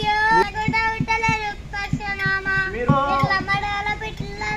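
A young girl singing an oggu katha devotional song to the goddess Yellamma in long, held high notes, phrase after phrase.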